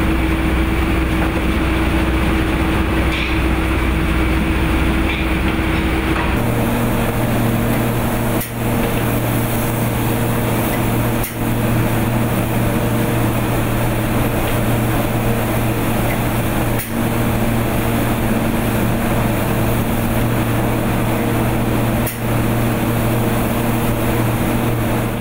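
Spray gun hissing steadily as finish is sprayed onto a wooden rocking chair, over a constant machine hum. About six seconds in the hum changes to a different pitch, and the hiss drops out briefly four times as the trigger is let off.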